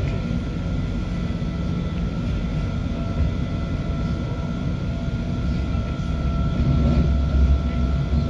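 Rack railcar of the Stuttgart Zacke running downhill on its rack track: a steady low rumble with a thin steady high whine over it. The rumble grows louder and rougher near the end.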